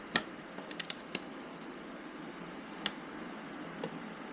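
About six sharp clicks and taps of plastic motorcycle fairing parts and small hardware being handled and fitted, the loudest just after the start and a quick pair near one second, over a steady low hiss.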